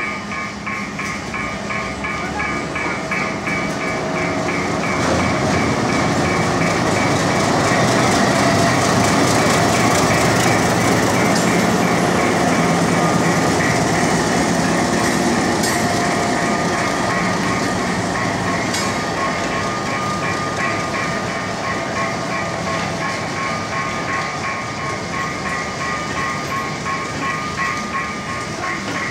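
Alco RSD-39 diesel locomotive and two coaches passing slowly at close range: the diesel engine runs and the wheels click over the rail joints, loudest about eight to twelve seconds in as the locomotive goes by. Throughout, a level-crossing warning bell rings with a steady pulse.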